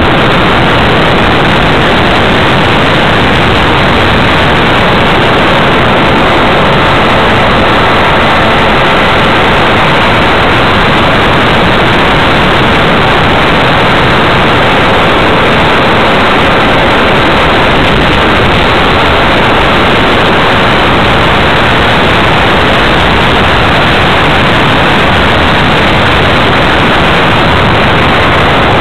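RC model aircraft in flight, heard through its onboard camera: a loud, even rush of propeller and airflow noise with a faint steady motor whine, unchanging throughout.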